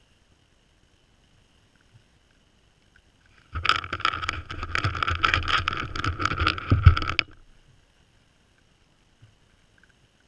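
White-tailed buck's muzzle right at the GoPro: a sudden burst of close rubbing, bumping and clicking on the camera housing as the deer noses and sniffs it, lasting about four seconds and stopping abruptly, with near silence around it.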